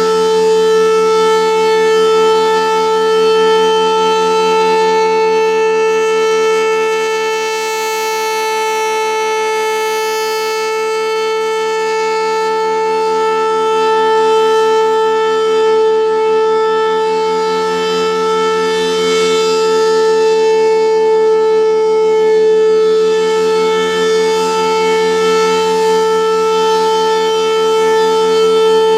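Federal Signal Thunderbolt 1000A outdoor warning siren with a single-tone chopper sounding its Alert signal: one steady, unwavering tone that swells and fades slightly in loudness.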